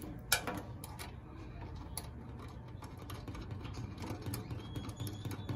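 Small metallic clicks and scrapes of a threaded antenna connector being screwed by hand onto a modem's gold antenna port, with one sharper click near the start.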